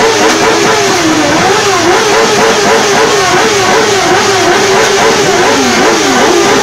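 Two sport motorcycle engines revving hard while standing still, loud. Their pitch climbs and drops again and again, and the two engine notes overlap and cross.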